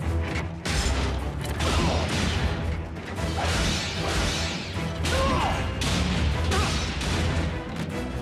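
Animated action sound effects, metallic crashes, clanks and whooshes of robots fighting, over a dramatic background score.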